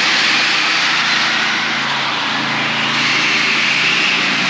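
Several battery-powered RC cars racing, their electric motors whining steadily inside a concrete parking garage.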